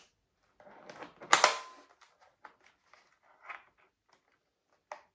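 Handling noise from a motorcycle helmet being adjusted on the wearer's head: scattered scraping and small plastic clicks from the chin bar and the microphone wire, with one loud sharp clack about a second and a half in.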